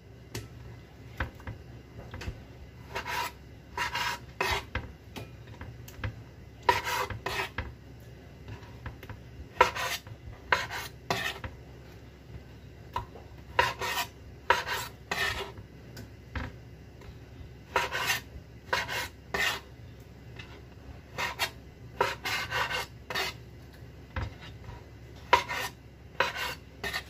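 Santoku-style kitchen knife slicing raw chicken on a cutting board: short groups of two to four quick strokes, the blade scraping against the board, repeated every few seconds.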